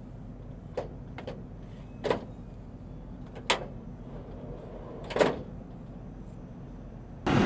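A few sharp knocks and clicks as the wing is handled and fitted onto the ScanEagle drone's fuselage on its catapult launcher, over a steady low hum. Just before the end a much louder steady noise starts suddenly.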